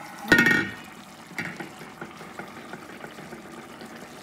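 A short loud clatter near the start, then the steady low bubbling and hiss of mutton curry simmering in a pot.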